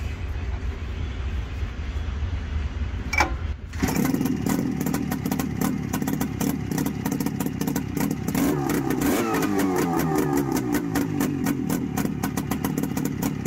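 Buran snowmobile's two-cylinder two-stroke engine on a test stand, started warm about four seconds in after a low rumble and a brief crank. It runs with its speed rising and falling around the middle as the carburettor is worked, and is shut off at the very end.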